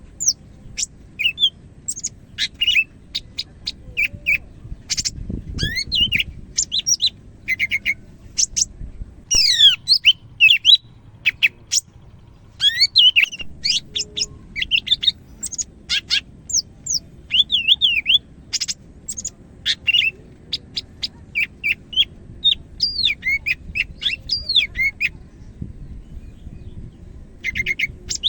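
A cucak hijau (green leafbird) singing: fast, varied phrases of short chirps, rapid trills and sweeping whistled notes, broken by brief pauses. It sings often and freely, the full song that bird keepers call 'gacor'.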